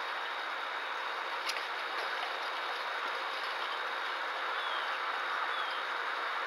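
Steady hiss of background noise through a security camera's microphone, with one sharp click about a second and a half in and two faint short falling whistles near the end.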